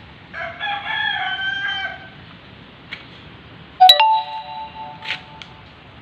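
A rooster crows once, a call of just under two seconds that falls slightly at the end. About four seconds in, a sharp strike rings on with steady tones for about a second.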